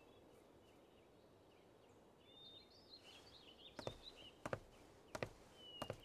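Faint footsteps of a man walking, about one step every 0.7 s in the second half, with small birds chirping in the background around the middle; the first two seconds are near silent.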